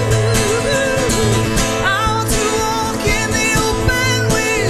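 Live acoustic performance: a woman's voice sings sliding, wordless vocal lines over steadily strummed acoustic guitar.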